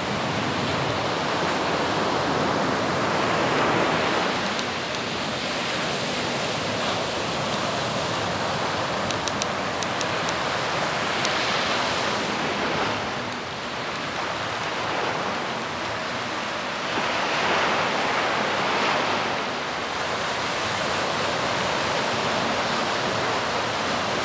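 Surf washing onto a beach: a steady rush of noise that swells and eases every several seconds.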